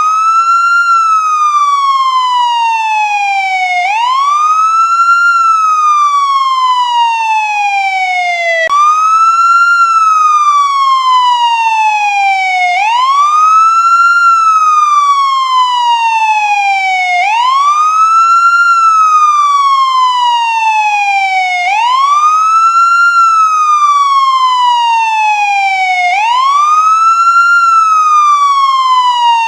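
American ambulance siren on its wail setting. Each cycle sweeps quickly up in pitch, then slides slowly down, repeating about every four and a half seconds. About nine seconds in, one fall cuts off and the rise restarts abruptly.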